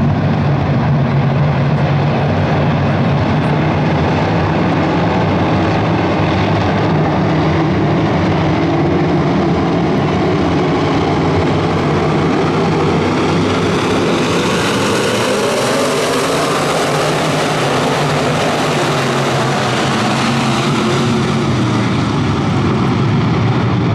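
A pack of IMCA Modified dirt-track race cars running at race speed, their V8 engines blending into one continuous engine noise. About halfway through, the sound grows brighter and fuller as cars pass close by, then eases.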